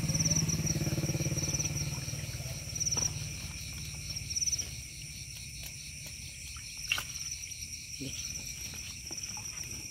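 Crickets chirping in a steady chorus, a high pulsing trill. A low motorcycle-like engine hum fades out over the first few seconds, and there are a couple of short knocks.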